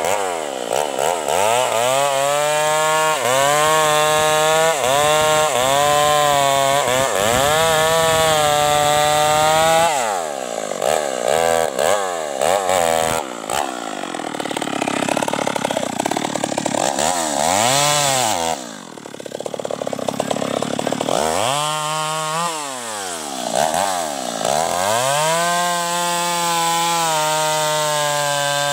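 Stihl MS 381 two-stroke chainsaw with its muffler opened up, revved hard and let back down over and over, then held at high revs near the end.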